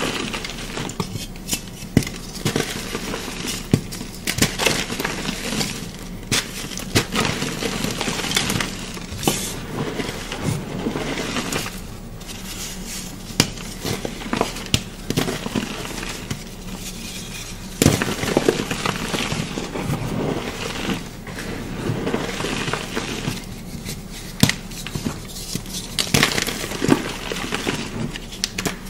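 Pieces of chalk crunching and crumbling as they are crushed, with frequent sharp cracks over a continuous gritty crackle.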